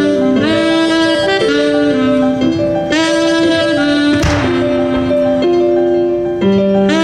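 Live jazz: a saxophone plays a slow melody of held notes over sustained lower chords. A single firework bang cuts across it about four seconds in.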